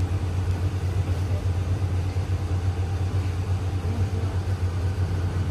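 Diesel locomotive engine idling: a steady, continuous low throb.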